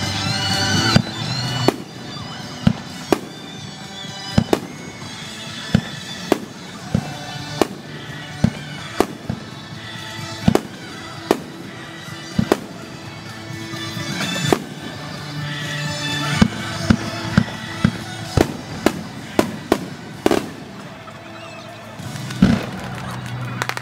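Aerial firework shells bursting in steady succession, a sharp bang about every second over a continuous rumble of the display. The audio runs at double speed.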